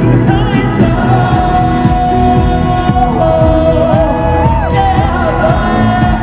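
Live pop ballad: a male singer holds long sung notes over the band, with a short run of ornamented pitch turns about four seconds in. It is heard through a phone recording from the audience, the sound dull above the upper mids.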